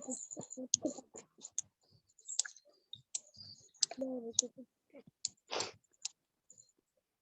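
Scattered clicks and taps, the sound of a phone being handled near its microphone, with a brief voice-like sound about four seconds in.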